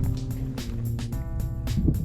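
Background music with a steady drum beat and sustained chords.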